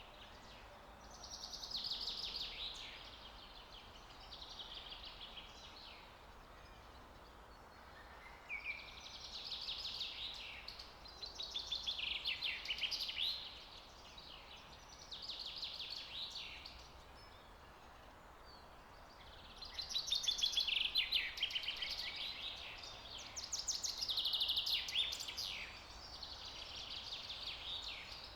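Songbird singing: repeated short phrases of rapid trilled notes, one every few seconds, over a faint steady background hiss.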